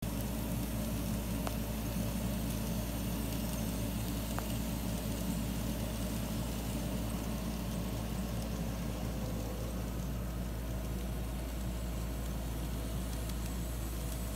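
Steady low mechanical hum over an even background hiss, unchanging throughout, with two faint ticks in the first five seconds.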